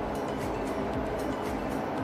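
Background music with a quick, even beat and sustained notes.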